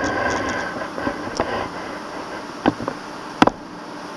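NJ Transit Comet commuter coaches rolling past at close range, a steady rumble punctuated by sharp clicks as the wheels cross rail joints. A faint ringing tone fades out in the first second and a half.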